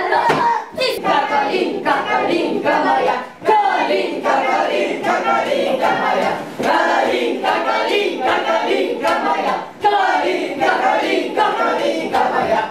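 Many voices singing together in chorus, in phrases with brief breaks between them.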